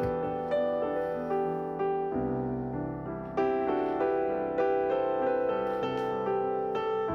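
Calm background piano music, single notes and chords struck one after another, each fading away.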